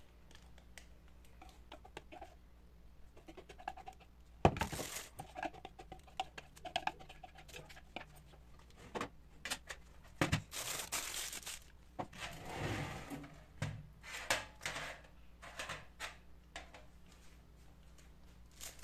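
Thin plastic piping bag rustling and crinkling as muffin batter is scraped into it from a bowl with a wire whisk, in short bursts with scattered small clicks and one sharp knock about four and a half seconds in.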